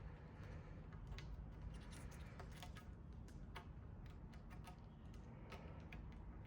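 Faint handling noises: scattered small, irregular clicks and rubbing as handlebar tape is folded and tucked into the end of a bicycle handlebar.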